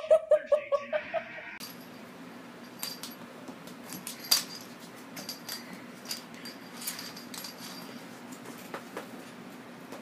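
A short run of quick pulsed vocal sounds, then scattered light clicks and clatters of a small object knocked about on a wooden floor by a cat, over a steady low hum.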